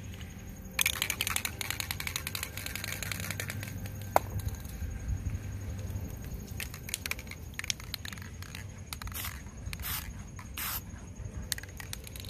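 An aerosol spray paint can: about a second in, a couple of seconds of dense rattling clicks, then a single sharp click. Near the end come three short hisses of black paint being sprayed.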